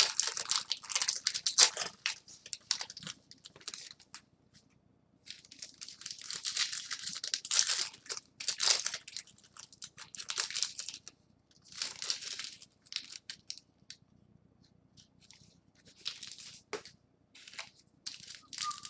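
Foil trading-card pack wrappers being torn open and crinkled, in a series of short crackling rustles with brief pauses between them.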